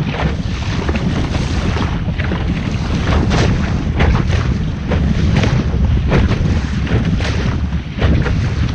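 Wind buffeting the microphone on a sailing boat under way, with repeated short splashes of water against the hull.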